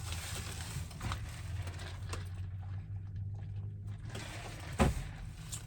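A steady low hum, with a few faint clicks and one louder knock near the end.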